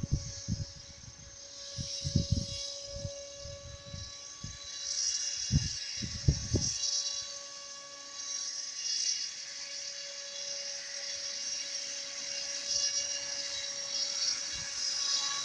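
Homemade RC boat's small motor running with a high-pitched whine that swells and fades as it goes. Irregular low thumps come during the first several seconds.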